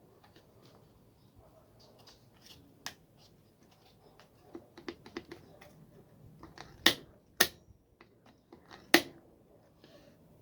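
Sharp plastic clicks from an angle grinder's trigger and safety switch being pressed and released by hand while the motor is off: first a few small clicks, then three loud snaps in the last few seconds. The trigger is sticking.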